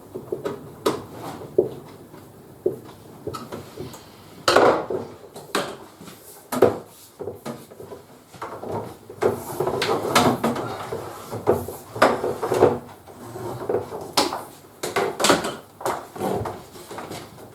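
Irregular knocks, clicks and clatter of hard parts and tools being handled during hands-on fitting work.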